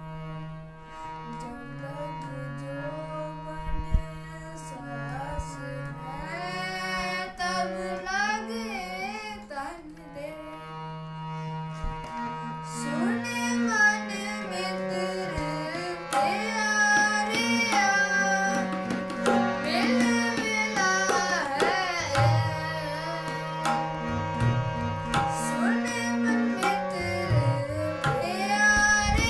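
A boy singing a Sikh shabad (devotional hymn) to his own harmonium, which plays held notes under the melody. The harmonium plays alone for the first several seconds before the voice comes in. The singing grows louder in the second half, over a tabla rhythm.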